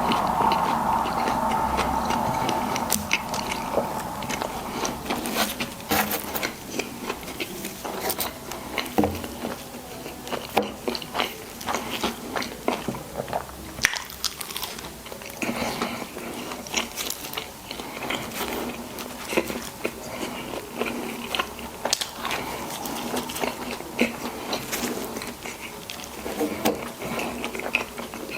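Close-miked mouth sounds of a person eating burgers and fries: biting and chewing with many small wet crackles and clicks, louder and fuller for the first few seconds.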